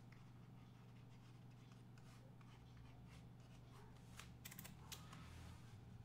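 Near silence: room tone with a steady low hum, and a few faint ticks and scratches about four to five seconds in.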